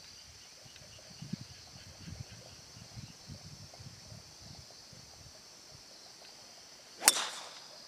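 A golf club striking the ball on a tee shot: one sharp crack about seven seconds in, with a short ringing tail, over a steady high-pitched background drone.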